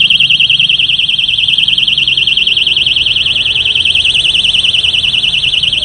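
ZORO anti-theft alarm padlock's built-in siren wailing very loudly: a high, rapidly warbling electronic tone. It has been set off by touching the lock while it is armed in alarm mode.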